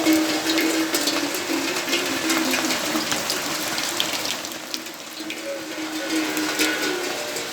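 Steady rainfall, with many close drops and drips ticking on hard surfaces, and a faint pitched sound running underneath for much of it. The rain eases slightly about halfway through.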